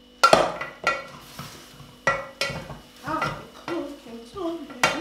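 Wooden spoon knocking and scraping inside a stainless-steel cooking pot of cooked greens, with about seven sharp knocks at uneven intervals.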